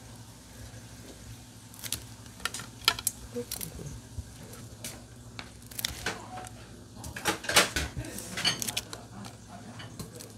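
Metal tongs and kitchen scissors clicking and clacking as the heads are snipped off salt-grilled king prawns, with scattered light clinks on a plate and a plastic basket. The busiest clatter comes about seven seconds in. A steady low hum runs underneath.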